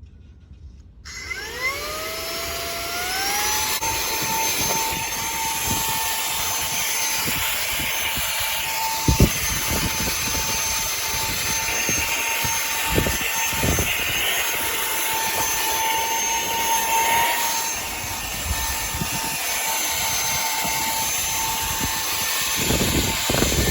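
Cordless handheld vacuum cleaner switching on about a second in, its motor spinning up with a rising whine and then running at a steady high whine while vacuuming. A few short knocks from the nozzle and debris come in the middle and near the end.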